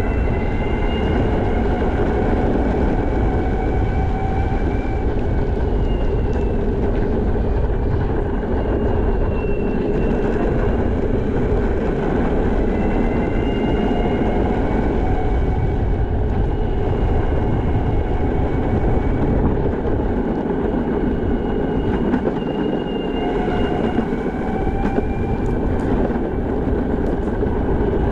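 Backfire Zealot electric skateboard rolling over pavement: a steady rumble and hiss from the wheels, with a motor whine that comes and goes in spells of a few seconds and rises slightly in pitch each time.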